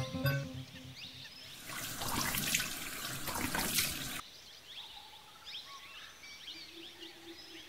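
Water splashing onto a face in a quick run of splashes, starting about two seconds in and cutting off suddenly about four seconds in. Faint bird chirps follow.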